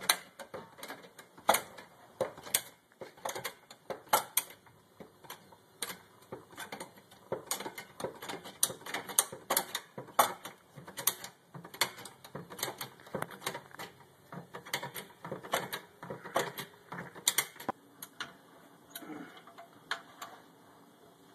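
A car jack being worked to raise the car: a long, irregular run of sharp metallic clicks and clacks.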